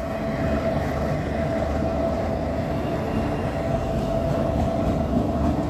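Empty autorack freight cars rolling past: a steady rumble of steel wheels on the rail, with a steady ringing tone held over it.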